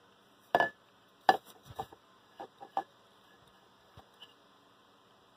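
Handling noise from a stainless steel vacuum tumbler being turned in the hand close to the microphone: a series of irregular knocks and rubs. The two loudest come about half a second and one and a third seconds in, then smaller ones follow, with two faint ticks near the end.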